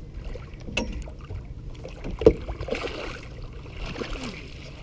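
Steady low rumble of wind and water around a small boat, with a few light clicks and one sharp knock about two seconds in.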